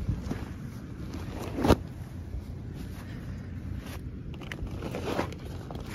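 Tarp-style chicken tractor canopy rustling and swishing as it is unrolled and handled on grass, with one sharp, loud swish about two seconds in and softer ones near the end, over a low steady rumble.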